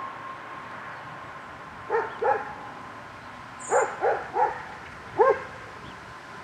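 A dog barking six short barks in three groups: two, then three, then a single one. A steady background noise of the approaching train runs under them.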